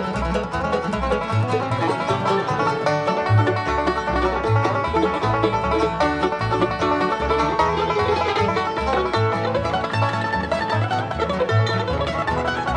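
Bluegrass band playing an instrumental break with no singing: banjo, guitar and mandolin over a bass plucking a steady, alternating beat.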